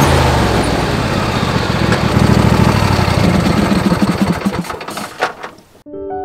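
An engine running close by with a steady low hum, dying away near the end. Piano music comes in just before the end.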